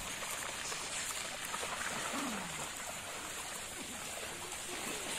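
Piglets rooting and grazing in grass, with rustling and chewing and a short falling grunt about two seconds in. A steady high hiss runs underneath.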